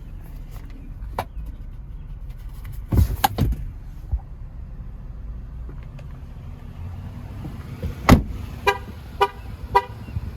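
Three short car-horn toots about half a second apart near the end, after a heavy thump just before them and a pair of thumps about three seconds in, over a steady low rumble.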